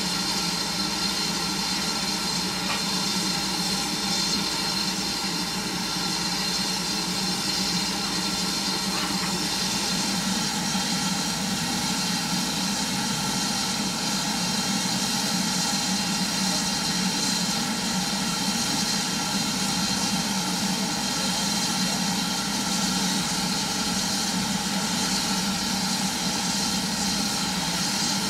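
BR Standard Class 4 steam locomotive No. 76084 standing in steam, a steady hiss of escaping steam with a constant hum under it.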